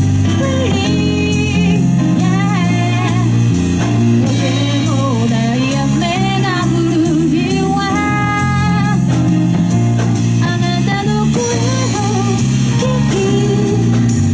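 Live band playing a slow song: a sung melody with vibrato over electric guitar, bass, keyboard and drums.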